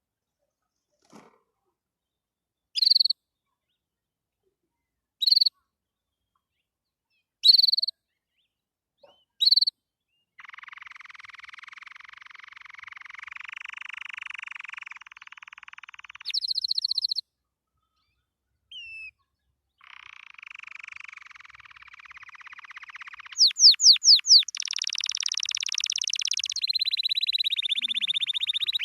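Canary singing: first a few short, sharp call notes about two seconds apart, then from about a third of the way in a long continuous song of buzzing rolled trills, with a high clear trilled phrase and a run of fast repeated notes near the end.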